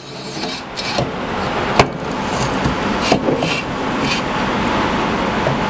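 A steady rushing noise that builds over the first second and then holds, with a few sharp clicks and knocks, the loudest a little under two seconds in, from the metal-and-aluminium router fence being slid and handled on the router table.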